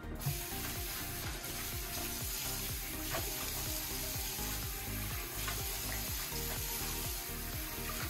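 Bathroom sink faucet turned on at the very start, then a steady stream of tap water running into the basin and splashing over a silicone scrubbing glove rinsed under it. Quiet background music plays underneath.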